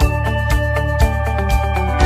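Background music with a steady beat, about two beats a second, over held instrumental notes.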